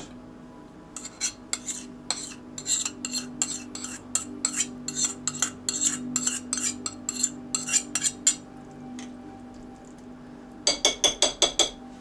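Metal spoon scraping and clinking against a stainless steel frying pan as noodles are scraped out into a ceramic bowl: repeated short clinks, about two to three a second, then a quick run of about six sharper taps near the end.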